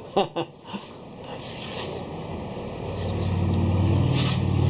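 A few clicks, then a low, steady engine hum that grows louder from about a second in.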